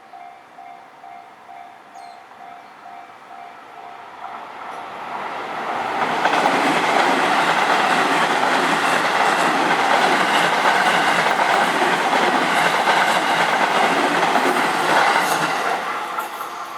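Japanese level-crossing warning bell ringing in a steady repeating pattern. Then a JR Kyoto Line train passes over the crossing: it builds from about four seconds in, runs loud for around ten seconds, and fades near the end.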